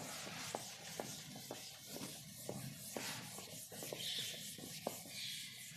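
Faint rubbing of a duster wiping chalk off a chalkboard in repeated strokes, with light ticks about twice a second.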